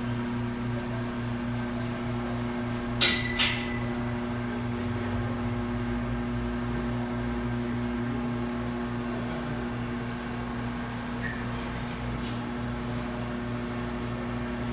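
Steady electric hum of a cooling unit, with two sharp metal clanks about three seconds in, less than half a second apart.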